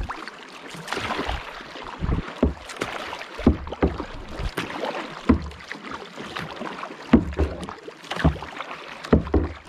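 Kayak paddles dipping and splashing in river water, in repeated strokes about once a second.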